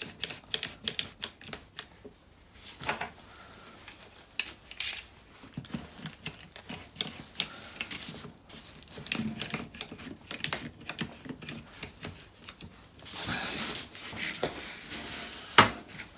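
Irwin one-handed bar clamps ratcheting as their triggers are squeezed, a run of irregular clicks tightening the jig to press a rubber anti-roll bar bush into its drop link. A brief rustle of handling comes about three seconds before the end, and a single sharp click near the end is the loudest sound.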